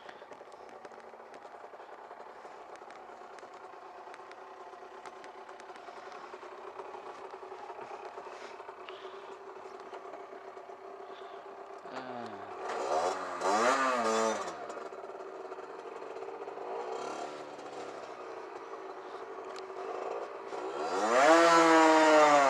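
Rieju RS2 Matrix Pro 50cc two-stroke motorcycle engine running steadily at low revs, then revving up and down twice about twelve seconds in. Near the end it climbs hard in revs as the bike accelerates, the loudest part.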